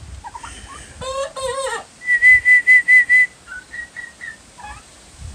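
A run of six short, high whistled notes, evenly spaced, followed by a few fainter ones. Just before them, about a second in, comes a brief wavering call.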